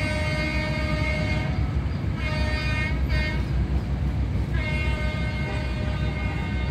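Train horn sounding in a series of blasts from a departing passenger train: a long blast that stops about a second and a half in, a short toot, a very brief toot, then another long blast from about halfway on. Under it runs a steady low rumble.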